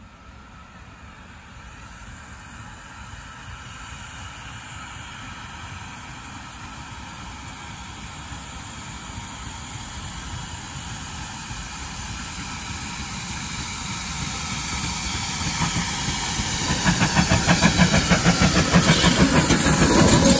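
Ex-GWR 57xx pannier tank steam locomotive approaching with its train, its sound growing steadily louder. Near the end, as the engine draws close, it becomes a quick pulsing beat, about four a second, with hiss.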